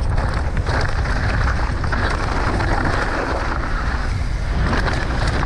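Wind rushing over the camera microphone and the tyres rolling fast over a dirt trail as a mountain bike descends at race speed, with scattered small clicks and rattles from the bike.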